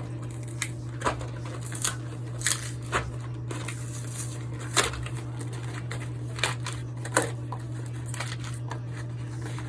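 A cardboard 100-round box of Winchester 9mm cartridges being opened and handled: irregular crinkles and sharp clicks of card, over a steady low hum.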